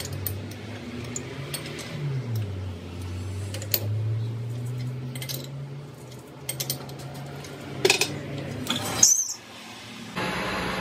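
Light metallic clinks and taps of steel tools and parts, over a steady low machine hum that drops in pitch about two seconds in.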